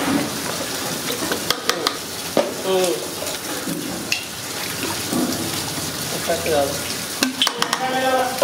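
Clear liquid pouring in a steady stream from a plastic bottle into a large aluminium pot of thick pickle masala, splashing into the oily mix, with a few sharp clicks.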